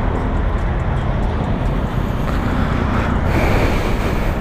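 Yamaha R15 V3's single-cylinder engine running as the motorcycle moves at walking pace, through its still-unmodified exhaust, mixed with street traffic noise.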